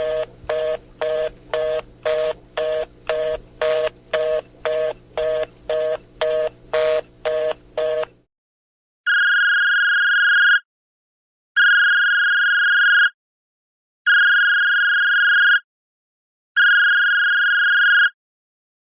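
Telephone busy signal: a two-note tone pulsing on and off about twice a second for about eight seconds, then stopping. After a short pause come four long, high electronic beeps, evenly spaced like a phone's ringing tone.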